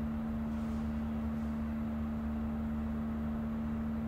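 Steady electrical hum inside a Bombardier Flexity Berlin tram, one even mid-low tone over a low rumble, unchanging throughout.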